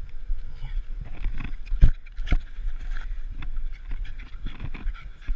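A Maltese dog nosing and brushing against a GoPro camera housing: irregular knocks and rubbing against the case, with the sharpest knock about two seconds in.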